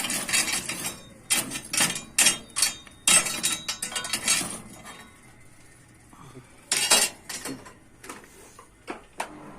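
Metal objects clanking and clattering against each other in irregular bursts of sharp strikes, with short pauses between.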